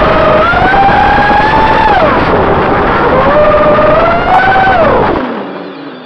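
EMAX 2205 brushless motors and propellers of a 3-cell FPV racing quadcopter, recorded by its onboard camera, whining loudly and sliding up and down in pitch with the throttle. About five seconds in, the throttle is cut: the whine falls in pitch and drops away.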